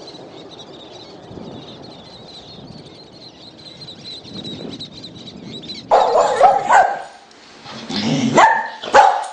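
A dog barking: several loud, short barks come in about six seconds in, over low background noise.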